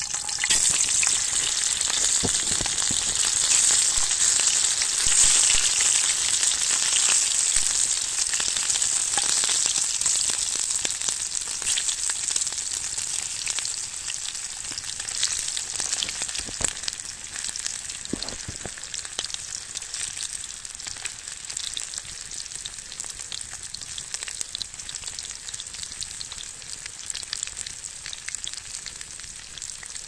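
Food sizzling as it fries in a hot pan, with scattered pops and crackles. It is loudest over the first several seconds, then slowly dies down.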